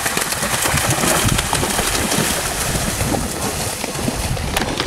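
A horse cantering through a water jump, its legs splashing through the shallow water, heard under steady wind buffeting the microphone.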